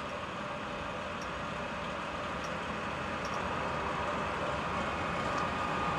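Graziano SAG 210 centre lathe running with its carriage travelling along the bed under longitudinal power feed: a steady gear-driven hum with a faint whine and a few light ticks.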